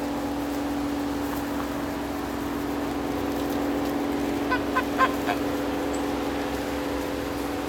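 Four short calls in quick succession from domestic waterfowl about halfway through, over a steady low hum.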